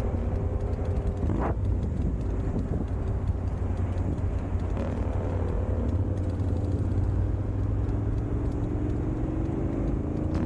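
Motorcycle engine running under steady wind rumble while riding, its pitch rising slowly over the last few seconds as the bike speeds up.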